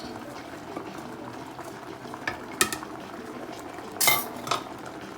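Pot of porridge yam simmering, with a few sharp metallic clinks of a utensil against the pot, the loudest and ringing about four seconds in.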